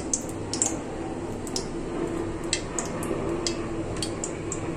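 Cooking oil poured in a thin stream into an empty iron karahi, with scattered small ticks over a steady low hum.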